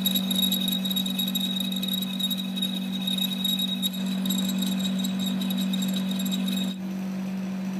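Metal lathe running with a steady low hum while a boring tool cuts inside a thin metal tube, giving a steady high-pitched ringing squeal from the tool on the tube that stops near the end.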